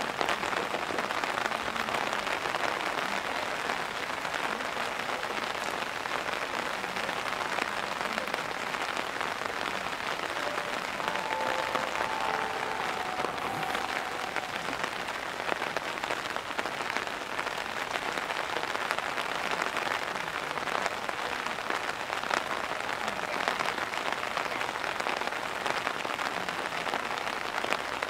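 Heavy rain falling steadily, a dense even hiss of many drops hitting surfaces.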